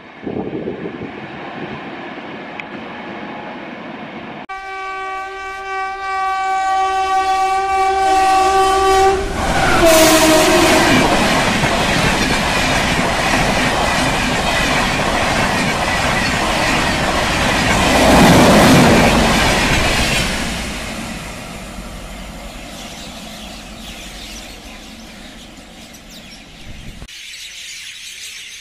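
Express passenger train passing at speed. Its horn sounds one long blast and drops in pitch as the locomotive goes by about ten seconds in. The coaches then rush past with loud wheel clatter, swelling again near eighteen seconds before fading away.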